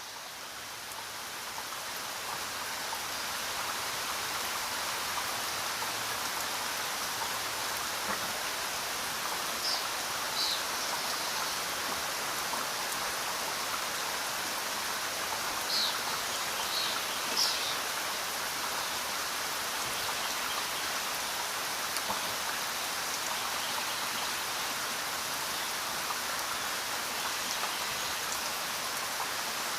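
Steady rain falling, an even hiss of drops that fades in over the first few seconds, with a few brief high chirps in the middle.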